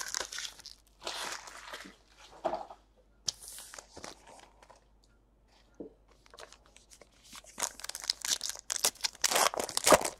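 Trading card pack wrapper crinkling in short bursts, then a quieter pause, then the next pack crinkled and torn open in a dense run of crackly tearing near the end.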